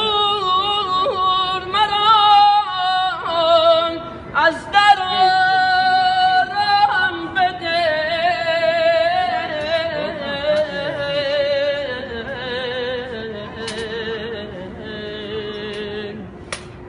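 A young man singing a Shia devotional chant to Imam Reza, unaccompanied, in a high voice. He holds long wordless notes with a fast quavering trill, and the melody sinks slowly in pitch.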